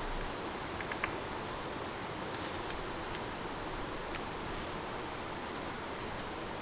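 Steady rain ambience with a few short, high chirps over it, the loudest about five seconds in, and occasional faint clicks of drips.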